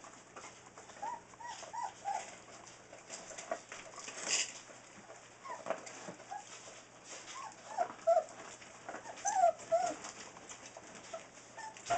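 Newfoundland puppies giving many short, high squeaks and whimpers as they jostle under their mother to nurse, amid soft rustling.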